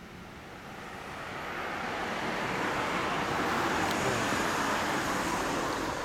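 A road vehicle passing by: a smooth rushing noise that builds over the first few seconds, peaks, and begins to fade near the end.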